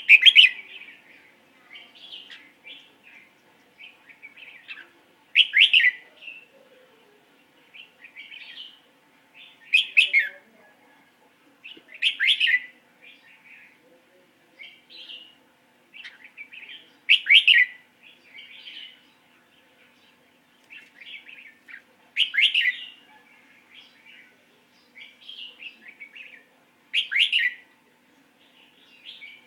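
A pet bird calling over and over: a loud, sharp chirp that sweeps downward comes every few seconds, with softer short chirps in between.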